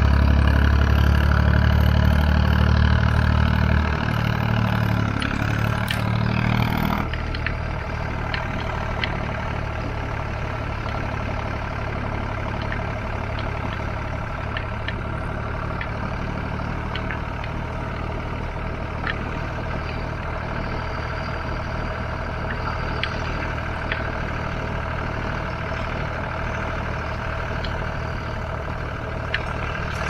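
Tractor diesel engine running loud and steady, then dropping in level about four seconds in and again about seven seconds in, as if throttling back or coming off load, then running steadily at the lower level.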